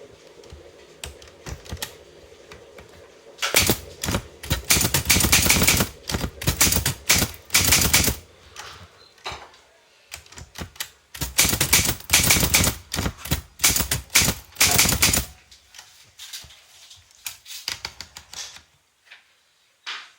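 Typewriter keys striking the paper in quick runs of keystrokes. Two long bursts of rapid typing are split by a short pause, followed by slower, scattered strikes.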